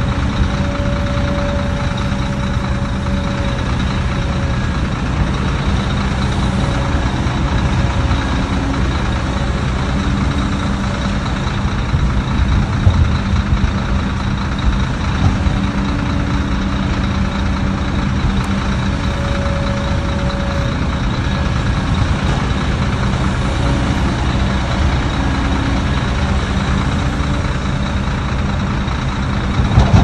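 Heavy diesel earthmoving machinery running steadily under load, with a few short knocks around the middle and one near the end.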